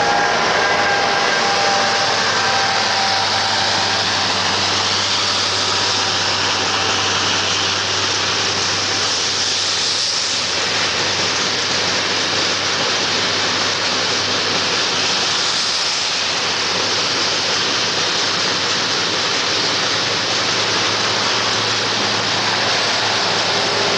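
Freight train of tank wagons rolling past, a steady rushing rumble of wheels on rails under a low hum, with a few faint high tones that fade out in the first few seconds.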